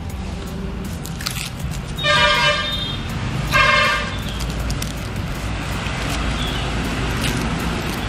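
Two short vehicle horn toots about a second and a half apart, over a steady low hum.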